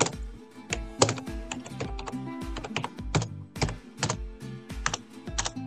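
Computer keyboard typing, a run of key clicks, over background music with a steady beat.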